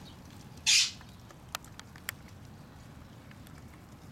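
A cat hissing once, a short harsh hiss about a second in, followed by a couple of faint clicks.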